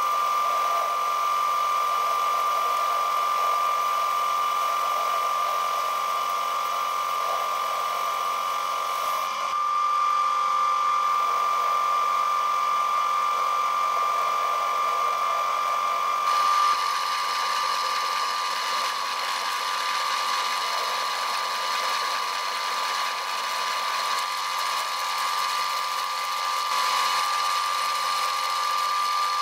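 TV-16 benchtop lathe running, its turning tool cutting a small steel blank down to a thin shaft for a screw, with a steady whine over the hiss of the cut. The sound shifts about halfway through as the cut changes.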